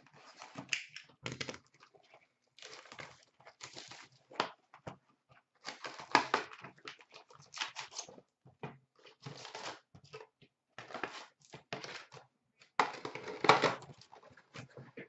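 A cardboard hockey-card hobby box being torn open and its wrapped packs of cards pulled out and handled: irregular bursts of tearing, crinkling and rustling, loudest about two seconds before the end.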